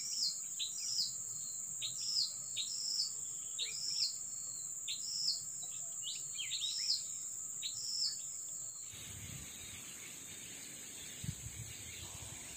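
A bird calling with short repeated chirps, about two a second, over a steady high-pitched insect drone. The chirps stop about nine seconds in, leaving the insect drone with some low rumbling near the end.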